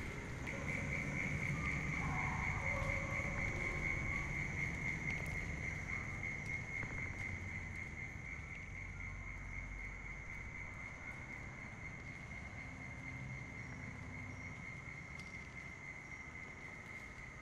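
Steady high-pitched trill of night insects over a low rumble, slowly fading out.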